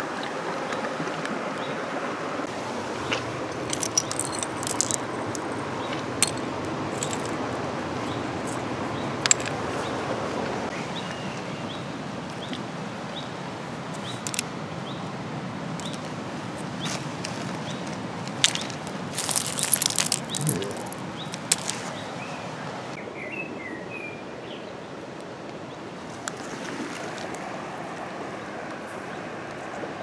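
River pebbles clicking and knocking together as they are turned over by hand, with a denser run of clatters about two-thirds of the way through, over a steady rushing background. A few faint bird chirps come through.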